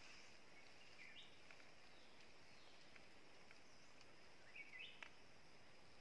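Near silence with faint bird calls: a short rising chirp about a second in and another near the end, over a faint steady high hiss.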